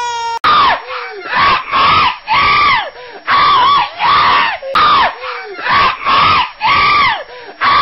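A voice screaming in about ten short, evenly repeated yells, each rising and then falling in pitch. It comes in right after a held wail cuts off.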